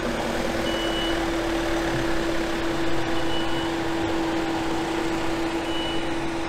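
Citroën Jumper van running as it manoeuvres, with a steady hum under it. A short high beep sounds three times, about every two and a half seconds.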